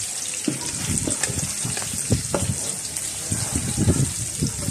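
Oil sizzling steadily in a stainless steel wok as sliced shallots, lemongrass and dried chillies fry, with a wooden spatula scraping and knocking against the pan now and then as they are stirred.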